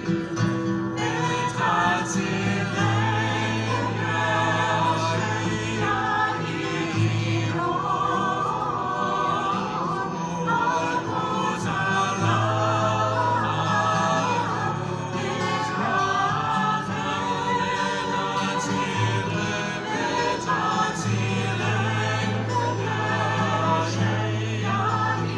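Music with several voices singing a melody together over long-held low bass notes.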